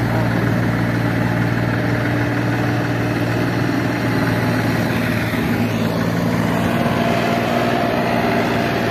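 Tractor engine idling steadily, its even low hum unchanged for several seconds.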